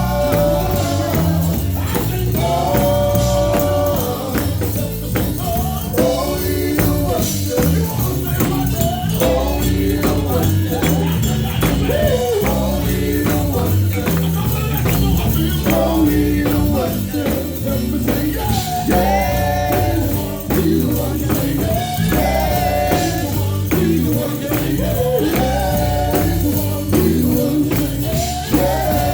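Live gospel music: voices singing a bending, held melody over a steady beat with tambourine and a heavy bass line.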